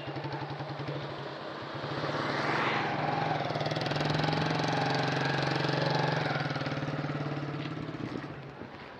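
A motor vehicle's engine running steadily close by with a pulsing low beat, growing louder for a few seconds and then fading away near the end.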